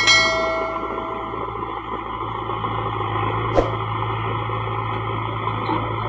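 A bell-like ding at the start, ringing out over about a second and a half, from a subscribe-button animation, over the steady running of a JCB 3DX backhoe loader's diesel engine as its front bucket pushes and levels soil. A single sharp knock about three and a half seconds in.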